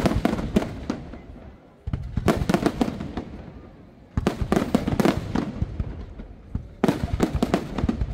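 Aerial firework shells bursting in salvos of rapid bangs, a new salvo breaking out about every two to three seconds and fading away before the next.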